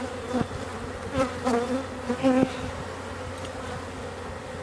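Honey bees buzzing around an open hive: a steady hum, with single bees flying close past and making brief buzzes that rise and fall in pitch. A few faint clicks are also heard.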